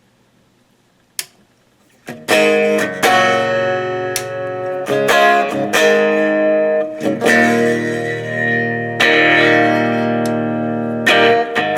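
Electric guitar played through a hand-built Fender blackface Vibrolux Reverb clone amplifier: a single click about a second in, then chords strummed from about two seconds in, let ring and restruck several times.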